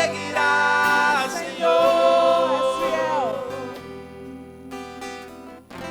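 Live congregational worship song in Portuguese: voices singing a long held line over instrumental accompaniment. The voices glide down and drop away about three seconds in, leaving quieter playing.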